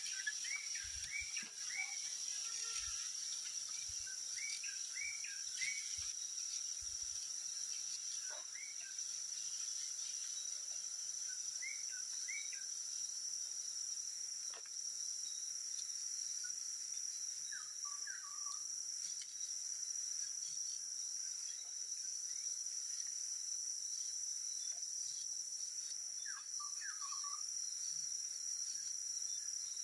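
Forest ambience: a steady, high-pitched insect drone with short bird chirps coming in small clusters every few seconds. A few soft low thuds in the first several seconds.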